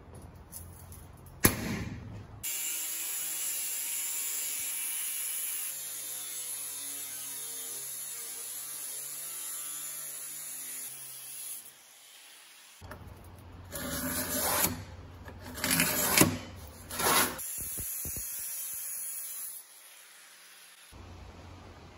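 Angle grinder with a cut-off disc slicing through steel sheet along a clamped straightedge: a steady, high hiss that breaks off briefly near the middle, then comes back in a few louder uneven surges before settling and stopping near the end. A single sharp knock comes just before the cutting starts.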